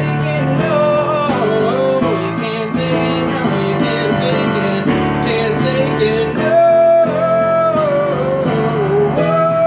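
Acoustic guitar strummed, with a melody line over it that bends in pitch and holds two long notes in the second half.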